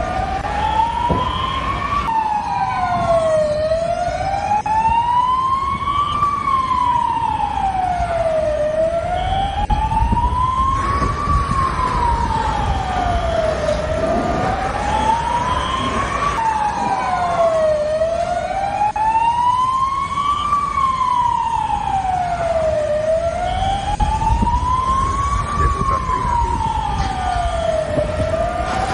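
Emergency siren wailing, its pitch rising and falling slowly about every five seconds, with a fainter second siren at times over a steady low rumble.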